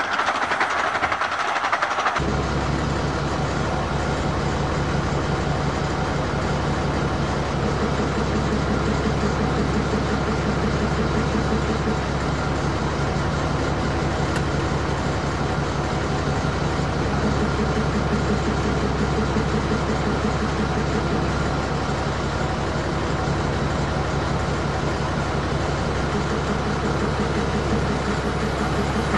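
A diesel locomotive's engine idling steadily, heard from inside its cab as an even low hum. It cuts in about two seconds in, after a short stretch of a train's running noise.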